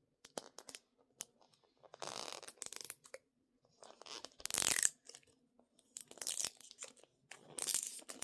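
Plastic packaging being torn and crinkled by hand while someone struggles to open a toy package. It comes in irregular bursts of tearing with small clicks between them, loudest about halfway through.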